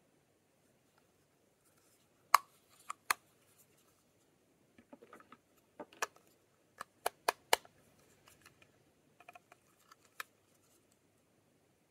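Lip balm tubes and their packaging being handled: about a dozen sharp clicks, the loudest about two seconds in and a quick run of them around seven seconds in, with faint rustling between.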